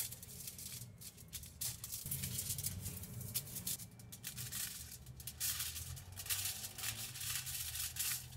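Aluminium foil crinkling and crackling as a sheet is handled and cut into pieces with scissors, a dense run of crackles.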